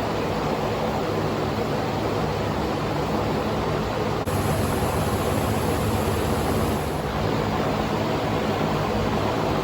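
26 hp Briggs & Stratton V-twin engine in a Cub Cadet lawn tractor running steadily, with a slight jump in level about four seconds in.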